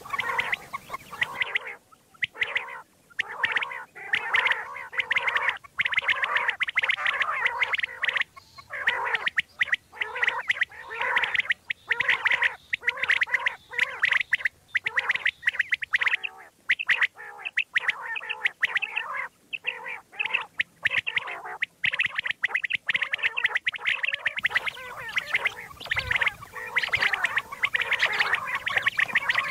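Common quail calling: a rapid, chattering string of short notes in quick runs, broken by brief pauses.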